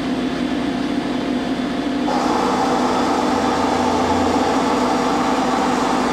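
Romi M-27 CNC lathe with its spindle braked to a stop, a steady machine hum; about two seconds in a louder whirring starts as the carriage is power-driven along the bed, and it runs until near the end.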